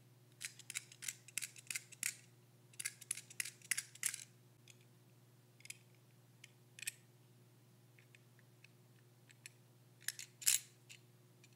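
Shuyue metal puzzle lock clicking and clinking as its parts are worked by hand. There are two quick runs of small metal clicks, then a few single clicks, and a louder cluster near the end.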